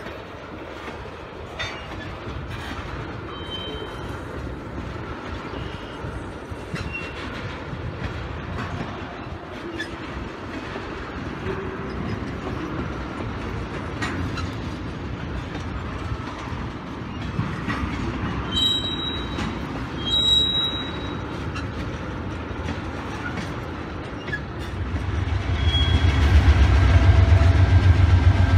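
Freight train tank cars rolling past, wheels clicking over the rail joints, with a few short high wheel squeals a little past halfway. About 25 seconds in, a much louder, deep rumble of diesel locomotives takes over.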